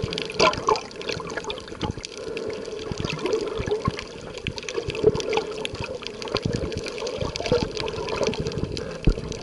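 Water sloshing and bubbling around an underwater camera, with irregular small clicks and knocks throughout and a steady low hum.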